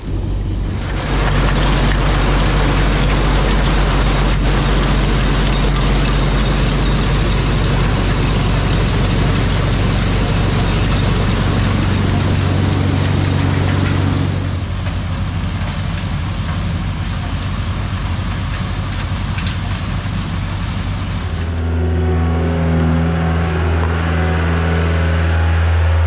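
White 1210 corn sheller running: a steady machine hum under a loud rush of shelled cobs and husks blowing out of its discharge spout. About 21 seconds in, a steady engine hum takes over and the rushing drops away.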